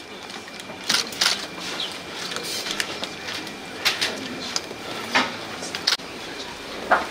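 Room noise of a crowded room: a low steady murmur with scattered sharp clicks and rustles, about half a dozen of them.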